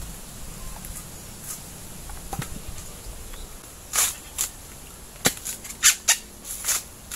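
Coconuts being handled in a heap: a few faint ticks, then from about four seconds in six or seven sharp knocks and cracks, irregularly spaced.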